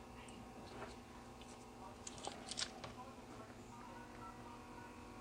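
Faint steady electrical hum, with a few light clicks about two to three seconds in.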